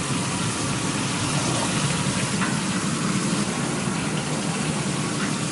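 Sliptong (small sole) frying in a pan: a steady sizzle.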